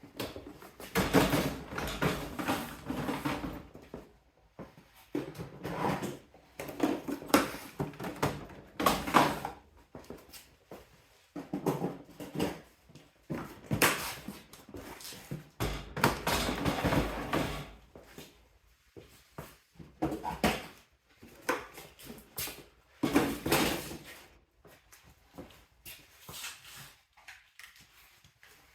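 Tools and storage being loaded onto stainless steel sheet-metal toolbox shelves: irregular bursts of clatter and knocks with short pauses between them.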